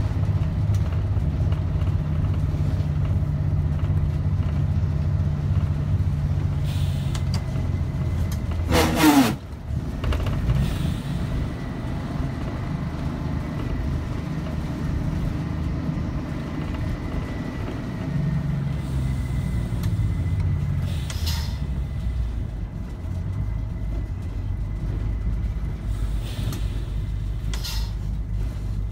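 Yellow Coach bus's Detroit Diesel two-stroke engine running on the road. About nine seconds in there is a sharp burst of noise with a falling pitch, after which the engine note drops lower, and a few short hisses come near the end.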